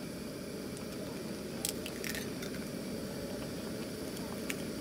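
A pot of ramyeon simmering on a portable butane gas stove: a steady low bubbling rush, with a few faint light clicks from eggs being cracked over the pot.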